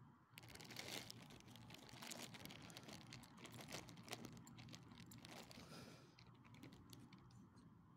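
Faint, rapid crunching and clicking from two small dogs moving about and nosing in loose gravel, starting just after the beginning and thinning out about six seconds in.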